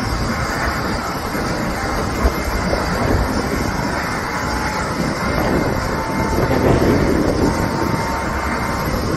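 Jet airliner's engines: a steady roar with a faint high whine held through, swelling slightly about six to seven seconds in.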